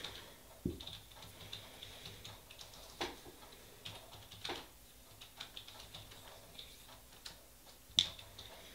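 Scattered light clicks and taps of small objects being handled, with a soft thump about a second in and a sharper click near the end.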